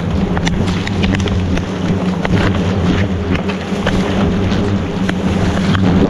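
A swarm of agitated ong vò vẽ (hornets) buzzing in a steady drone around their broken-open nest, the sign of a nest with brood that the colony is defending. Short clicks and crackles of the papery comb being handled run through it.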